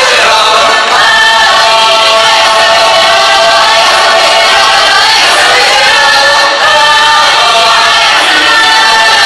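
A Croatian folk singing group sings together in long held phrases, loud and steady, with two brief breaths between phrases.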